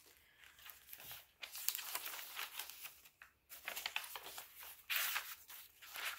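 Paper pages of a handmade junk journal being turned and handled, rustling and crinkling in irregular bursts, loudest about five seconds in.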